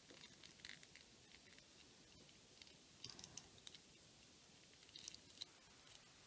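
Faint clicks and scratching of a plastic action figure being handled and its joints moved, in a few small clusters about a second in, at three seconds and at five seconds.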